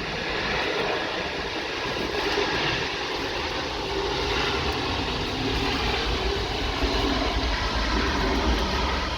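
Jet airliner noise during landing: a steady rush with a deep rumble underneath that grows stronger in the second half.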